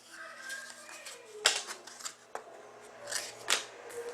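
Trading cards being handled: a few sharp clicks and slides of card stock.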